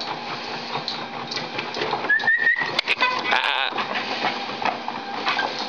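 Motorized treadmill belt running under two boxer dogs' paws, a steady running noise. A short high whine comes a little after two seconds, followed about a second later by a short voice-like call.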